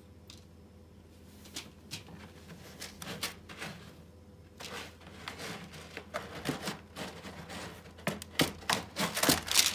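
A cat scratching and digging in a plastic litter box of pellet litter: a run of irregular scrapes and rattles, coming faster and louder near the end.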